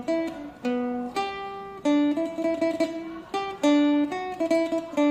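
Zhongruan, the four-string Chinese plucked lute, played as a short melody: single plucked notes mixed with stretches of fast tremolo picking on one note. The instrument's broken neck has just been repaired.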